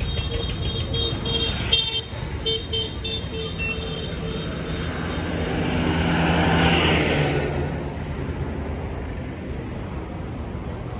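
A heavy truck passing close by on the road, its engine and tyre noise swelling to a peak a little past the middle and then fading, over a steady traffic rumble. In the first couple of seconds a horn toots in short repeated notes.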